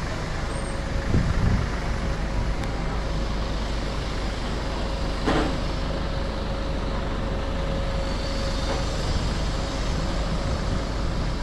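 City street traffic: a steady rumble of passing vehicles with a steady hum, a low thump just over a second in and a sharp knock about five seconds in.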